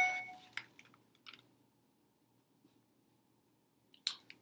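A ringing tone fading out in the first half second, then near quiet with a few faint clicks, and near the end the brief rustle of a picture book's paper page being turned.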